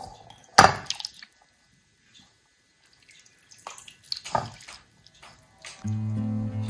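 Soup ladled from a pot into a ceramic bowl: a few short splashes and pours of broth, the first the loudest. Music comes back in near the end.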